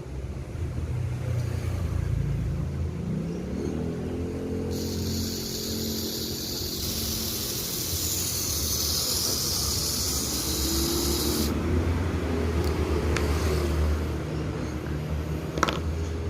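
Battery-operated Tomica GT-R R32 toy car running, giving a car-like sound that rises in pitch and later swells and falls, over a steady low hum. A hiss starts abruptly about five seconds in and stops abruptly about eleven seconds in.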